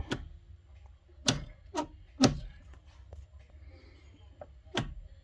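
A crankshaft being shoved end to end in its bearings in the crankcase, clacking metal on metal a few times. The knocks come from too much end play, about a millimetre and a half, because the bearings sit without shims.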